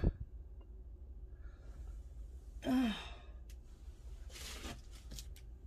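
A woman's short sigh with a falling pitch about three seconds in. A sharp knock comes right at the start, and faint rustling and small clicks come near the end.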